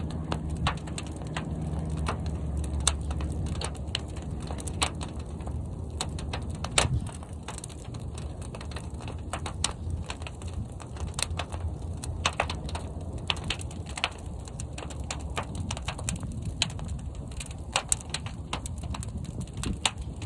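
Fire burning inside a large kiln: a steady low roar of flames with frequent, irregular sharp crackles and pops.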